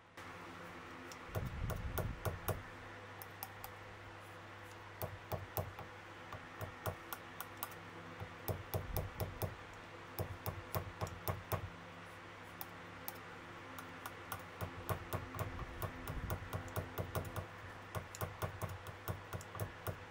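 Electric bass plugged into an amplifier, with a steady mains hum, while a metal screwdriver taps the pickups' pole pieces, the taps coming through the amp as short runs of sharp clicks and knocks: the check that the newly fitted pickups and wiring work.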